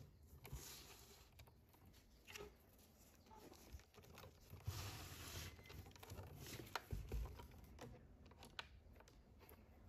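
Faint handling noise of a plastic radio-cassette player being turned and shifted on a wooden tabletop: scattered light clicks and knocks, soft rubbing, and a couple of dull thumps about seven seconds in.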